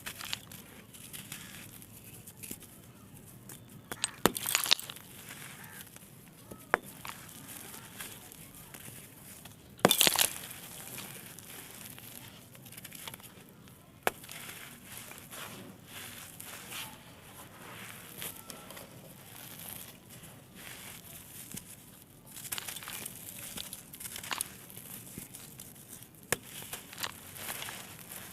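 Small dried blocks of gritty red sand-clay being crushed and crumbled: crisp snapping pops over a gritty crumbling rustle. The sharpest cracks come about four seconds in and again about ten seconds in, and a run of smaller crackles comes near the end.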